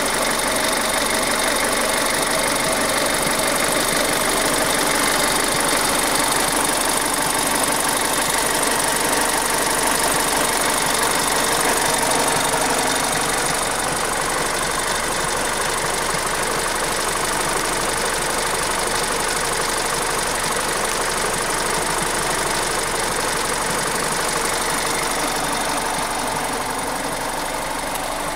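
Mitsubishi Chariot Grandis GDI direct-injection petrol engine idling with a loud, steady rattle, which the owner suspects is an abnormal noise. It gets slightly quieter about halfway through.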